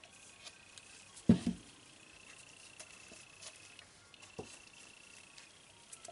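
A single dull knock about a second in, as a soap-batter container is set down or picked up on the tabletop, followed by a few light clicks of handling. A faint steady high whine comes and goes underneath.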